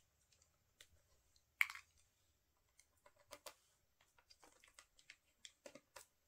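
Faint, scattered clicks and light scrapes of a small screwdriver working out the tiny screws that hold a laptop's LCD panel in its lid. The sharpest click comes about a second and a half in.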